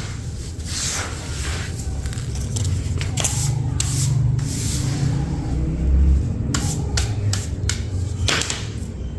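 Dry, crumbly material being rubbed and scraped by hand: a run of short, uneven scrapes over a steady low rumble.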